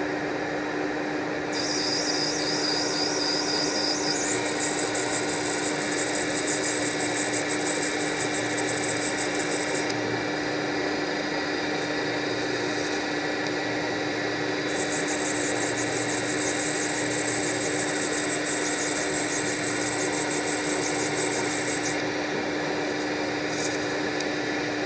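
Metal lathe running steadily with a constant hum while turning a small piston between the chuck and a tailstock live centre. A high hiss runs over it and drops away for a few seconds about ten seconds in, and again near the end.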